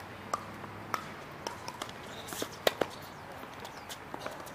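Tennis ball knocks during play, a scatter of sharp knocks from ball on racket and court. The loudest two come a fraction of a second apart about two and a half seconds in, with lighter taps among them.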